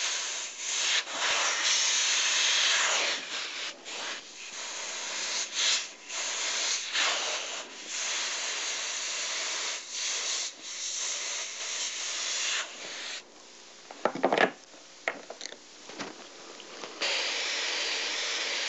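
Double-action airbrush hissing as it sprays paint over a fine-mesh stencil, the air switching on and off in repeated bursts. About two-thirds of the way through the spraying pauses, with a few short handling sounds, then it resumes as a steady hiss.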